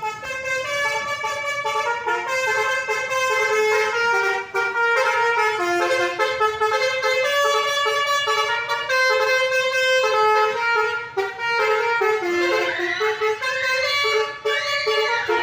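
A bus's 'telolet Basuri' multi-tone musical horn playing a tune of held notes that step up and down in pitch. Near the end it switches to rising-and-falling siren-like whoops, then cuts off.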